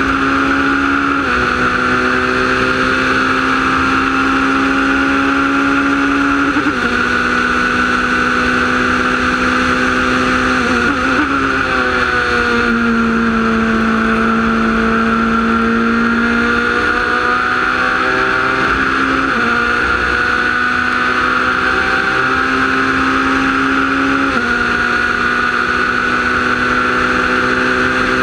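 Wolf GB08-Honda sports prototype's Honda engine heard onboard at racing speed. Its pitch climbs slowly in each gear and drops sharply at each gearshift, with a lower, steadier stretch through a corner in the middle.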